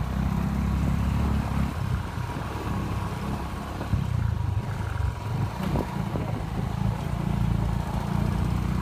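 Motorcycle engine running at low revs on a dirt trail, a steady low beat that weakens for a couple of stretches and then comes back.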